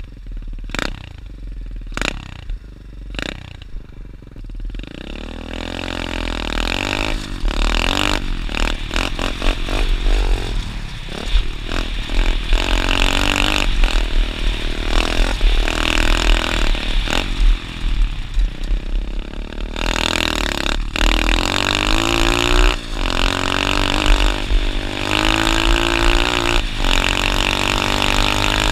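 Dirt bike engine revving up and down while riding, its pitch rising and falling over and over. The first few seconds hold a few sharp knocks, and the engine grows louder about five seconds in.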